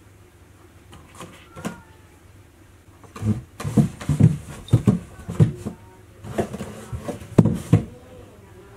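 Cardboard box shoved in jerks across a wooden floor: a run of scuffs and bumps that starts about three seconds in and lasts some five seconds.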